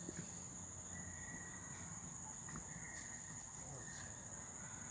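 Faint, steady high-pitched chirring of an outdoor insect chorus, held without a break.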